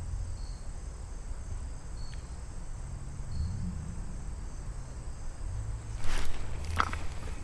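Crickets chirping in a steady high chorus over a low outdoor rumble, with two short sharp noises near the end.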